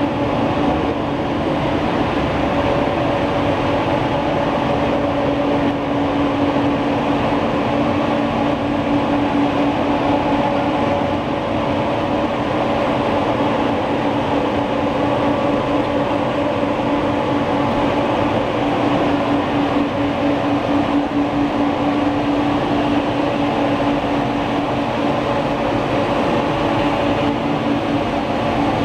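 Six-colour stack-type flexographic printing press running steadily: a continuous mechanical rumble with a constant hum over it.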